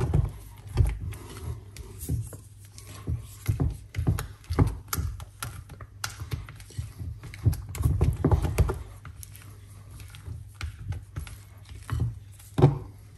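A utensil knocking and scraping against a mixing bowl in irregular clusters as thick fruit cake batter is stirred, folding food browning through it to darken the colour.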